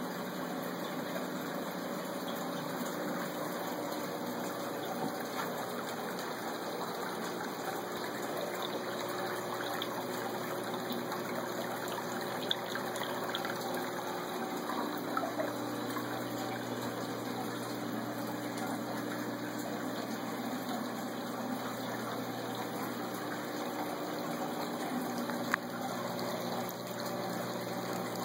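Water steadily splashing and trickling into a saltwater stock-tank pond from its protein skimmer outlet and return plumbing, over a low, steady pump hum.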